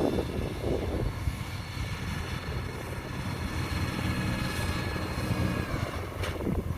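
Rice combine harvester running steadily in the field: a low engine rumble under a steady whine of several high tones, with a brief sharp knock near the end.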